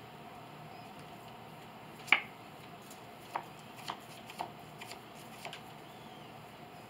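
Trading cards being handled and shuffled in the hand: a string of about six short sharp clicks, the loudest about two seconds in.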